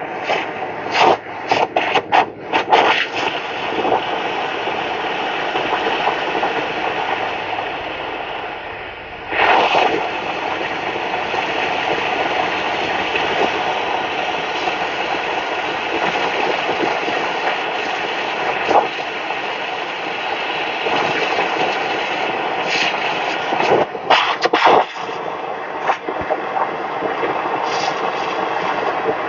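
Hammer blows on the bent steel hinge mounts of a garden tractor hood: sharp strikes in quick clusters in the first few seconds and again near the end, over a steady rushing noise.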